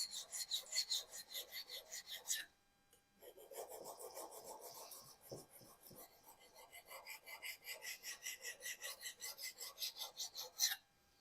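Japanese kitchen knife blade scraped back and forth on a sharpening stone in quick, even strokes, about three to four a second, with a short pause about two and a half seconds in and stopping near the end.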